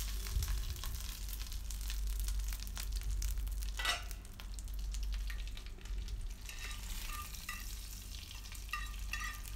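Hot coconut oil sizzling and crackling in a nonstick frying pan with curry leaves, mustard seeds and urad dal: the tempering (tadka) just off the heat. There is a single knock about four seconds in, and sharper short crackles near the end as the hot tempering is tipped into the aviyal.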